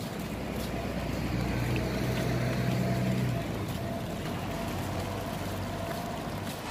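Low city street rumble of traffic, with a vehicle's engine hum that swells about a second in and fades after about three and a half seconds, over a faint steady whine.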